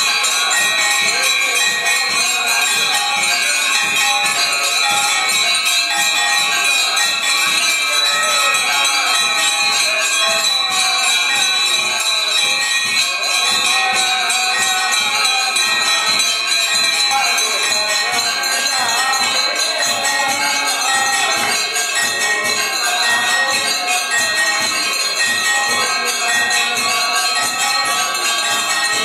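Brass temple bells and hand bells ringing continuously and densely during an aarti, a wash of metallic ringing with one tone repeating in a steady beat.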